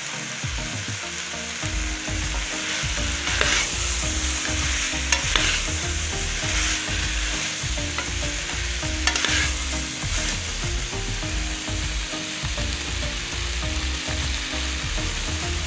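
Potatoes and cauliflower in masala sizzling steadily in a metal pan while a metal ladle stirs and scrapes through them, with several louder scrapes of the ladle against the pan.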